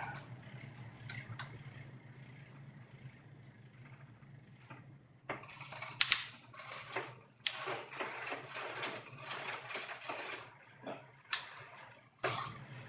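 Bicycle drivetrain turned by hand while the gears are shifted: sharp clicks of the shifter and derailleur, then a stretch of chain rattling over the rear sprockets. The rear derailleur is out of adjustment, so the chain does not settle cleanly on its cog.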